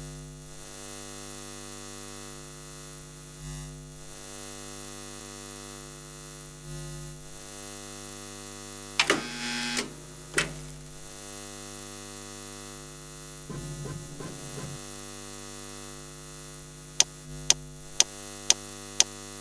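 Steady electrical mains-style hum of a train departure display board. About nine seconds in there is a loud crackling buzz as the display flickers on, and a shorter crackle comes around fourteen seconds. Near the end a sharp tick starts, repeating twice a second.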